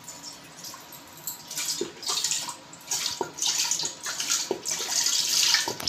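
Milk pouring from a carton into a stainless steel pot, splashing in uneven surges as the pot fills.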